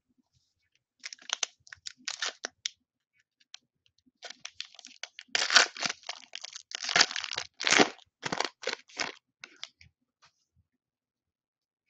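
A shiny foil trading-card pack wrapper being torn open and crinkled by hand. Short crackles come first, then a longer, louder run of tearing and crumpling from about four seconds in until near the end.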